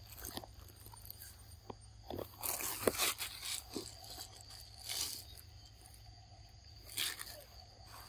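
A pig-tailed macaque biting and chewing a piece of fruit: a few short bites spread through, the loudest cluster about two and a half to three seconds in, with single ones around five and seven seconds.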